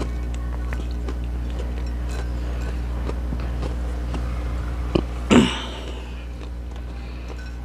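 Close-miked chewing and small clicks of fingers picking crunchy snack pieces off a ceramic plate, over a steady low electrical hum. About five seconds in comes one louder short mouth sound that falls in pitch.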